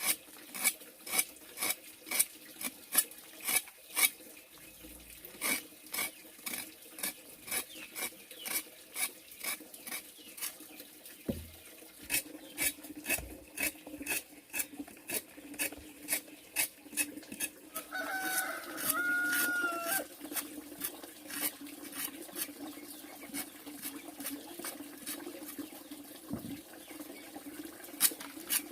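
A steady series of sharp knocks, about two a second, over a low steady hum. A short pitched animal call with a bending tone comes about two-thirds of the way through.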